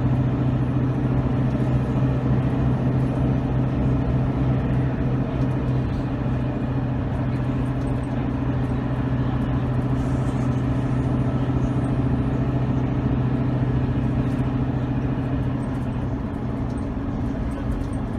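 Bus diesel engine running steadily with a low, even drone, easing off slightly about sixteen seconds in.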